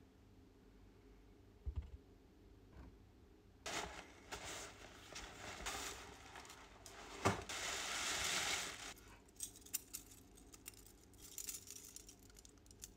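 Tissue paper crinkling and rustling as it is pulled off for several seconds, with one sharp knock among it, then the small metal chains and spikes of a detachable shoe-spike attachment clinking and jingling as it is handled.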